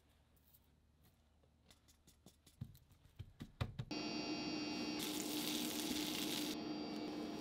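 A few light taps and pats as seasoned flour is worked onto raw salmon fillets. About four seconds in, butter starts sizzling in a nonstick frying pan. It gives a steady frying hiss with a low hum underneath, and the hiss grows louder for a moment as the butter foams.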